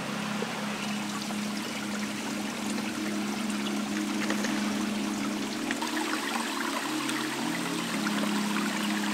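A small mountain stream trickling over mossy rocks, under soft background music of held low notes that change a few times.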